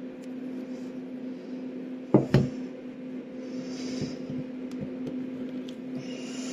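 Plastic chisel scraping and picking at a plaster dig block from a toy treasure dig kit, with two sharp knocks about two seconds in, over a steady low hum.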